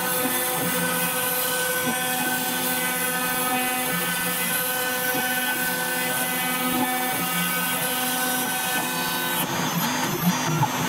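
MechaPlus Pro Basic 10-05 CNC router milling 2 mm FR4 glass-fibre sheet, its spindle running at 20,000 rpm with a 2 mm diamond-cut carbide cutter, and the dust extraction running. It makes a steady machine whine with several held tones, while lower tones shift every second or two as the cut goes on.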